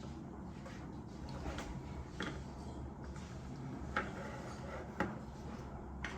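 Light clicks and knocks of plastic toy pieces being handled, the sharpest about two, four, five and six seconds in, over a low steady hum.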